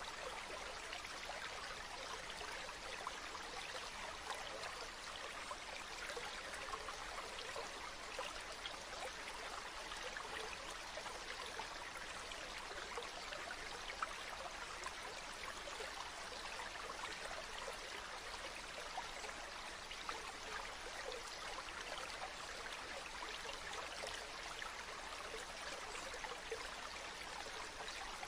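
A steady, even hiss with faint crackling, like running water.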